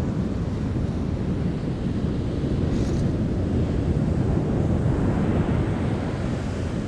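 Wind buffeting the microphone over the steady rush of ocean surf.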